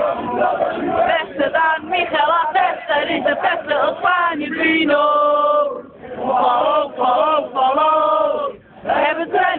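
Crowd of football supporters singing a chant together, mostly men's voices, with long held notes about halfway through.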